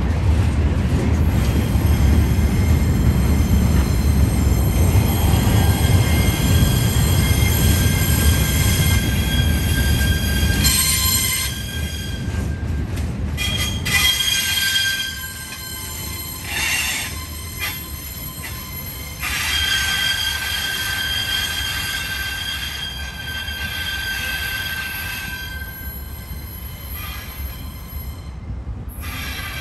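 Freight train cars rolling past on curved track, their wheels squealing in several steady high whining tones. A heavy low rumble runs under the squeal for the first third or so, then drops away as the end of the train draws off, leaving mainly the squeal.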